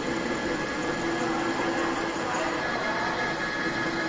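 Metal-cutting lathe running with a steady mechanical hum and a held whine, as the carriage feeds the tool along a steel bar during thread cutting.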